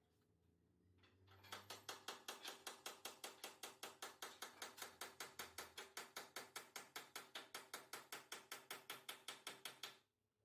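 Rapid, even mechanical clicking like a ratchet, about five or six clicks a second, starting about a second and a half in and stopping suddenly near the end.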